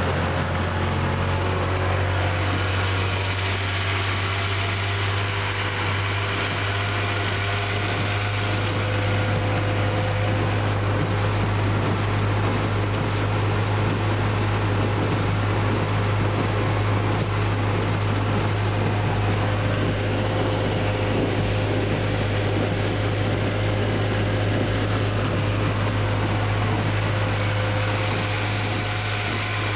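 Vintage Johnson outboard motor running steadily at cruising speed, with a constant low hum under a rush of wind and water as the aluminium boat moves across the river.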